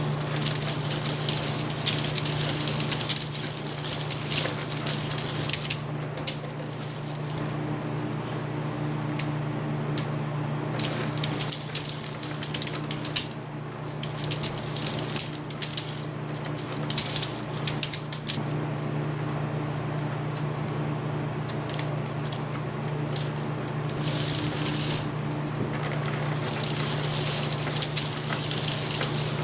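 K'Nex model Zipper ride running: a steady motor hum with irregular plastic clicking and rattling from the moving parts, coming in clusters.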